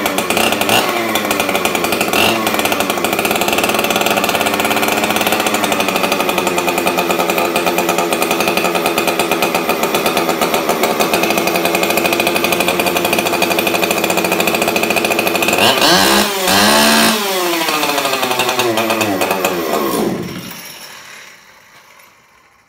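Husqvarna 266 XP two-stroke chainsaw running steadily on a custom-built expansion pipe in place of its stock muffler. About sixteen seconds in the revs dip and climb again, and about twenty seconds in the sound dies away.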